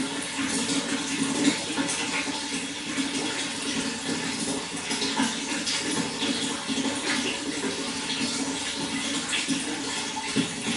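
Running water splashing and gurgling steadily, a dense rushing sound with constant small splashes throughout.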